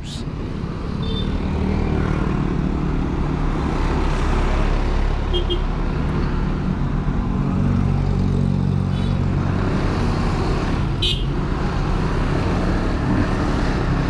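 Motor scooter engine running steadily under way, with road noise and passing traffic, heard from the rider's seat. The engine gets a little louder about a second in as the scooter speeds up.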